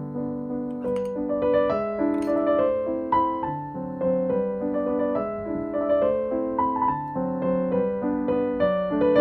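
Background piano music: a gentle, steady run of struck notes. A couple of faint clicks sound about one and two seconds in.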